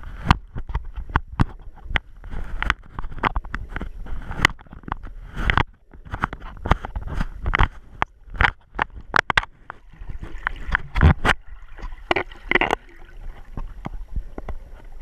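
Muffled underwater sound picked up through a GoPro's sealed waterproof housing: a rapid, irregular string of clicks and knocks from water, bubbles and handling of the camera, over a low rumble.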